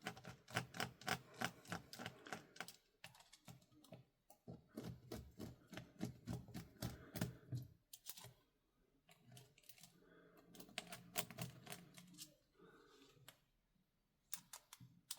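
Quick runs of light, sharp clicks and taps from small airsoft rifle parts being handled, several a second for the first half, then sparser clicks.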